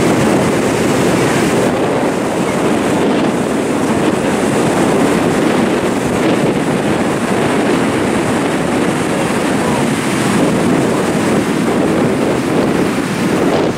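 Steady wind rumbling on the microphone over the continuous wash of ocean surf breaking on the beach.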